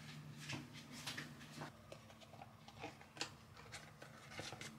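Faint clicks, taps and rustles of hands handling kitchenware: a metal baking tray being moved, then a cloth wrap on a bowl being handled, over a low steady hum.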